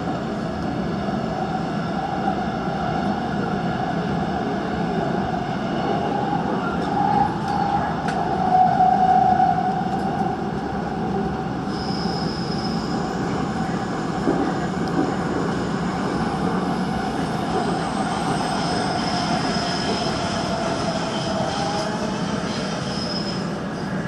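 Busan Metro Line 3 train running at speed, heard from inside the car: a steady rumble of wheels and running gear with a droning tone that swells about a third of the way in. A high-pitched wheel squeal comes in briefly about halfway through and again for a few seconds near the end.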